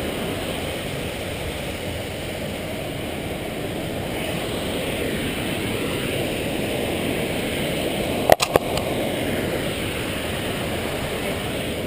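Steady rushing of creek water, with a single sharp knock about eight seconds in.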